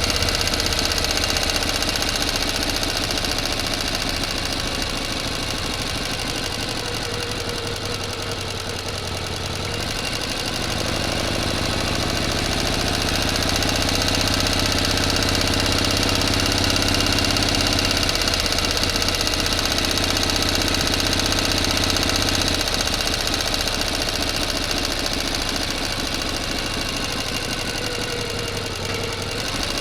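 A motor running steadily, getting a little louder and changing tone about ten seconds in before settling again.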